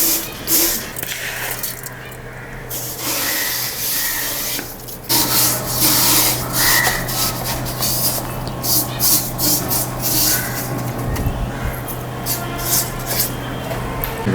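White aquarium sand being poured and spread in a small fish tank: a gritty rustling and scraping with many small clicks, over a steady low hum.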